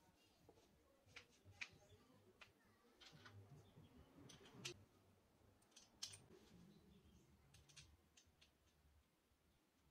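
Faint, irregular small clicks and taps of a steel washer and nut being handled and fitted onto a bolt in a small wooden block, with soft handling noise between them.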